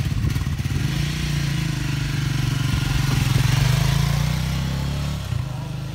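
Triumph motorcycle engine ticking over with an uneven beat, then pulling away: the note steadies and grows louder, then drops off about five seconds in as the bike moves away.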